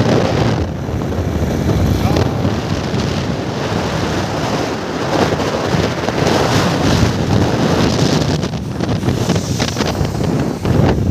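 Wind buffeting a phone microphone on a moving motorbike, a loud rough rush that swells and eases, with the bike's running noise underneath.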